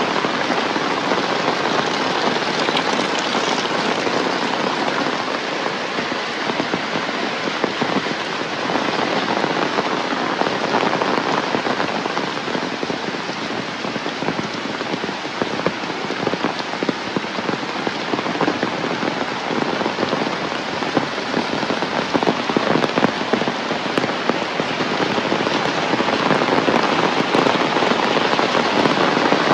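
Heavy rain pouring down: a dense, steady hiss of falling water flecked with the patter of individual drops, growing a little louder near the end.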